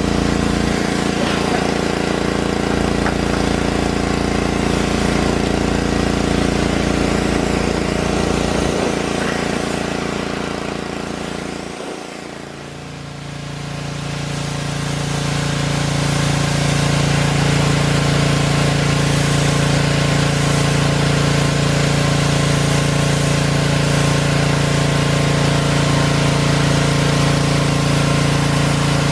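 Pressure washer engine running steadily. About twelve seconds in, the sound dips briefly and comes back with a changed, steadier low tone.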